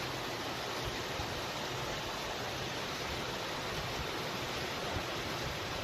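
Steady rushing of water from a burst water main flooding the street, an even, unbroken noise.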